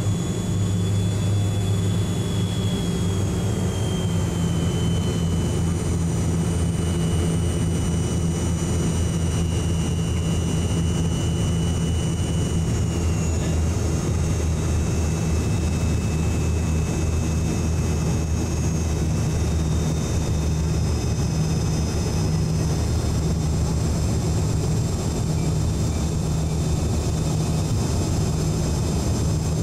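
Jet airliner cabin noise on landing approach: a steady engine drone and airflow rush, with thin high engine whines that slowly drop in pitch over the first dozen seconds or so.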